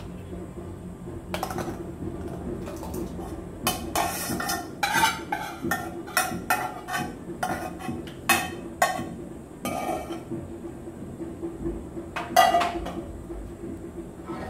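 Steel spoon scraping and knocking against an aluminium cooking pan as fried vermicelli is scraped out into a pot of milk, then stirring in the pot. The knocks come in an irregular run, thickest in the middle, with one more near the end.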